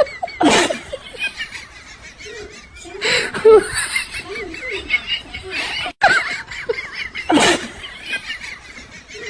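People laughing and giggling with bits of voices, broken by a few loud sudden sounds about half a second, three and a half, and seven and a half seconds in.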